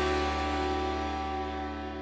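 Music: a single sustained chord with deep bass ringing out and slowly fading away.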